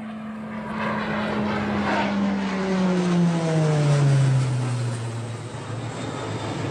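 Low fly-by of a Beechcraft T-6 Texan II, a single-engine turboprop trainer. Its propeller tone falls steadily in pitch as it passes, and the engine and propeller sound is loudest about three to four seconds in.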